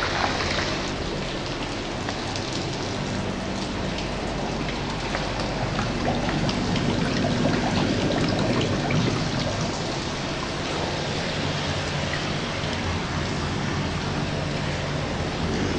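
Steady bubbling and splashing of aeration water in a hatchery's larval rearing tank, a dense patter of small drops. Under it runs a low, steady machine hum.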